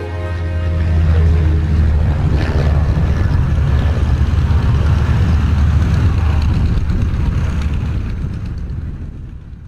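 Supermarine Spitfire's V12 piston engine running with a deep, rough drone as the fighter lands and rolls along grass. The sound fades away near the end.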